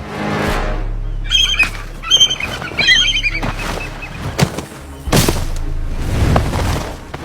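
Large birds squawking harshly in a scuffle, a run of calls about one to three and a half seconds in, with wing flapping and a sharp thump about five seconds in, over a low music drone.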